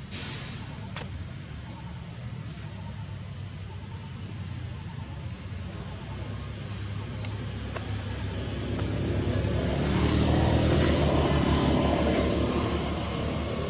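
Motor vehicle engine going past: a low drone that swells from the middle, is loudest a little before the end, then eases off. A few sharp ticks are scattered through it.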